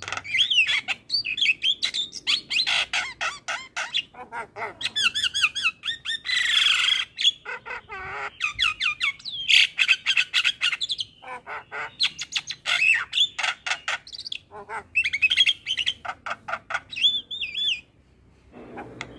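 Javan myna singing a long, varied song: rapid strings of whistles, clicks and harsh squawks, breaking off briefly near the end.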